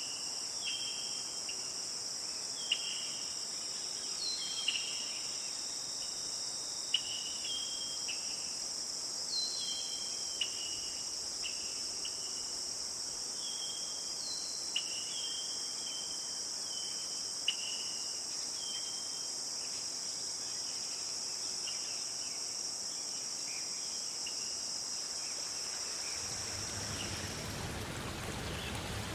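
Steady high-pitched chorus of insects such as crickets, with many scattered short chirps over it during the first two thirds. Near the end a steady hiss of falling water fades in as the insects fade out.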